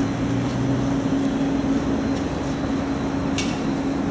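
Steady outdoor urban hum of engines and machinery, with a constant low drone and a wash of traffic-like noise. A single short click sounds near the end.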